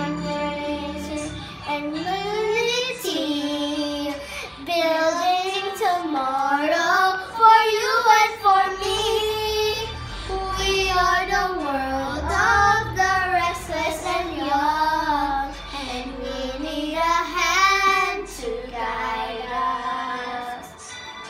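Young girls singing a melody over a music backing track.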